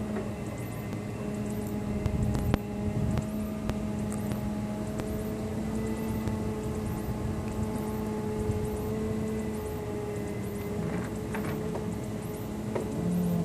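Bucket truck's engine running steadily, a low, even drone with several held tones and no change in speed.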